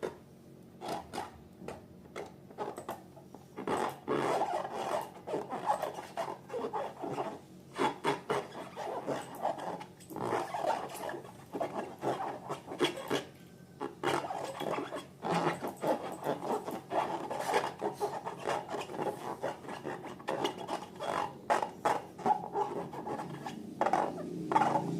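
Slime being mixed and worked, making a continuous run of irregular sticky clicks, crackles and squelches.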